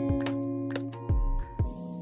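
Instrumental background music with plucked and held melodic notes over a bass line, with two deep drum beats in the second half.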